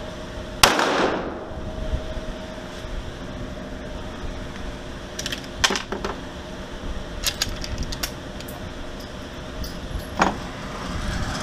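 A 9mm pistol, a custom Glock-pattern build, fires a single loud shot about half a second in, echoing off the walls of an indoor range. Scattered metallic clicks from handling the pistol follow, then another sharp crack near the end, over a steady hum.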